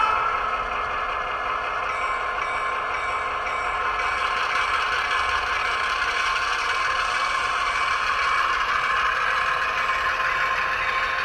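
ESU LokSound sound decoder's diesel engine sound for an HO scale MP15AC switcher, played through the model's small speaker. It runs steadily and builds slowly as the locomotive starts to pull away. A horn blast cuts off at the very start.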